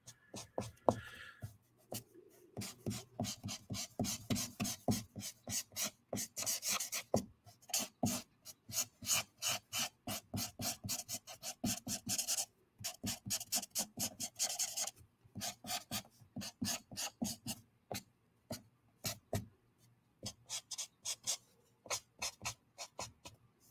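Copic alcohol marker rubbed back and forth across sketchbook paper: a quick run of short strokes, several a second, with a few brief breaks.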